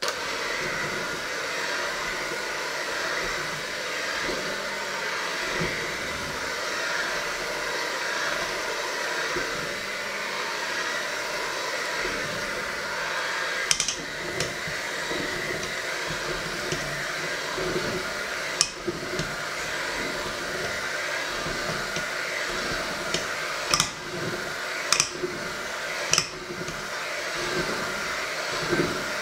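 Electric hand mixer switched on and running steadily, its beaters whisking a thick batter in a stainless steel bowl. In the second half a few sharp clicks stand out as the beaters knock against the steel bowl.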